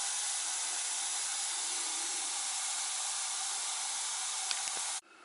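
Steady hiss from a home-built live-steam garden railway locomotive being fired up with a gas-fed ceramic burner under its boiler. The hiss cuts off suddenly near the end.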